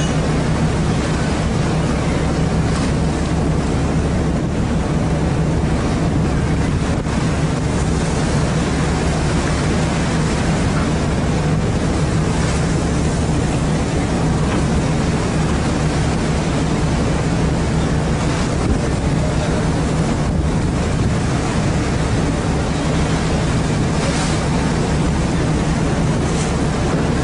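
Steady low drone of a fishing boat's engine under the constant wash of the sea, with wind rushing over the microphone.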